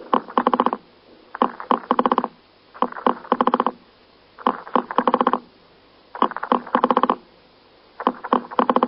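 Elephant beetle stridulating: six bouts of rasping pulses about a second and a half apart. Each bout is a couple of separate clicks and then a quick run of about eight pulses.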